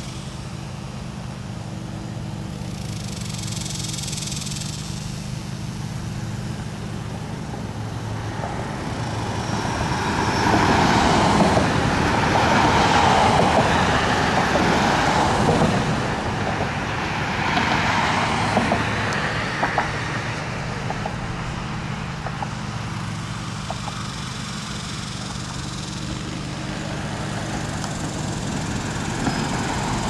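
Road traffic: a steady low engine hum, with passing vehicles swelling loudest about a third of the way in and again briefly a little later.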